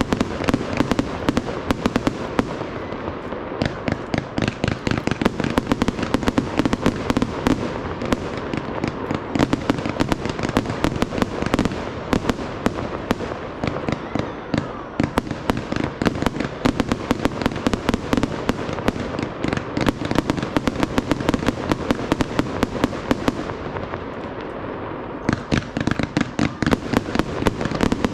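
Fireworks display going off in a dense, continuous barrage of bangs and shell bursts, several per second. The volley thins briefly a little after two-thirds in, then comes back denser near the end.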